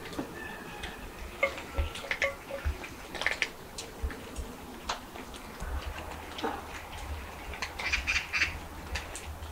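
Cats crunching dry kibble from stainless steel bowls: a scatter of short, crisp clicks, with a few brief animal calls in the first couple of seconds.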